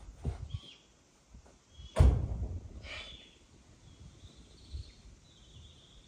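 A sudden loud thump about two seconds in, with short bird calls before and after it.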